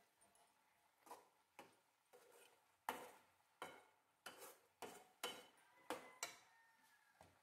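Metal spatula knocking and scraping against an aluminium kadhai while stirring sliced okra: about ten sharp strokes at uneven intervals, stopping shortly before the end.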